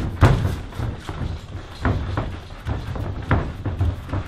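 Kickboxing strikes landing: a kick thuds into the leg just after the start, then several irregular thuds of gloves and shins striking and feet moving on the ring mat.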